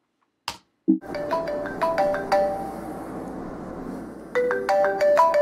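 iPhone alarm going off: a ringtone melody of quick, bright notes, starting about a second in after a click and a short thump, and louder again near the end.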